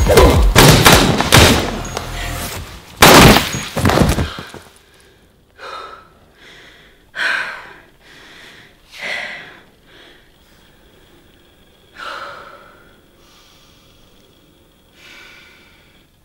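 A loud stretch of dense hits and noise cuts off abruptly about four seconds in. After it comes a woman's heavy, ragged breathing: separate gasping breaths every one to three seconds.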